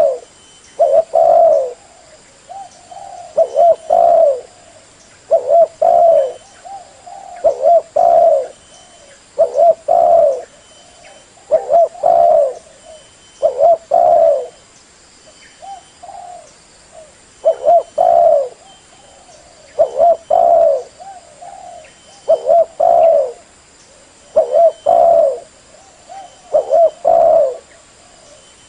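Spotted dove cooing: the same short phrase of a few low coo notes repeated over and over, about one phrase every two seconds.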